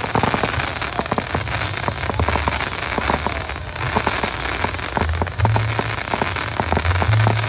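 Fireworks going off: a dense, uneven run of sharp cracks and pops, several a second, over a low rumble.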